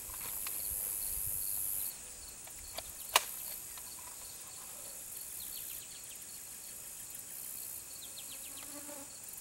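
Insects buzzing in a steady high-pitched drone that swells and eases, louder in the first two seconds, with faint repeated chirps. A single sharp click comes about three seconds in.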